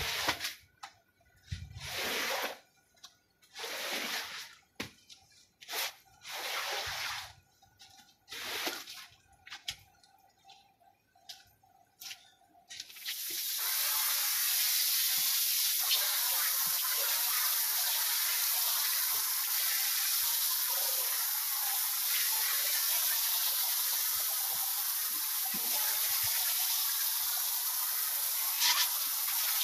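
A squeegee pushing water across a soaked rug in swishing strokes about every two seconds. About 13 s in, a steady hiss of water spraying from a hose nozzle onto the rug starts and keeps going.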